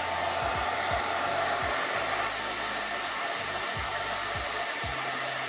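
Hand-held hair dryer blowing steadily, aimed at the underside of a wireless gaming mouse to warm and soften the glue of its glides.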